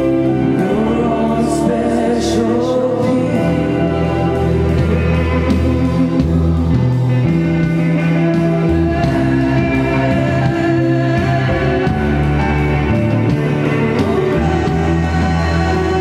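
Live worship band playing a slow song, with voices singing over drums, guitar and keyboards.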